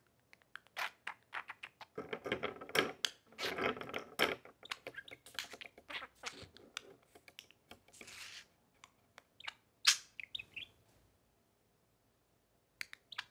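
Budgerigar chattering and warbling, mixed with many sharp clicks, falling silent about eleven seconds in.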